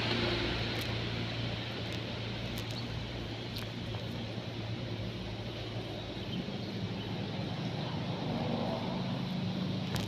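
A steady low engine drone that rises somewhat in pitch past the halfway point, with a few faint ticks.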